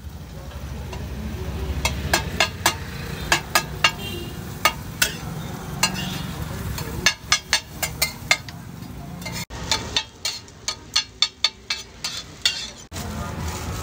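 A steel spatula and knife clack against a flat iron griddle (tawa) in quick runs of strikes as a chickpea and onion filling is chopped and mixed, with frying sizzle underneath.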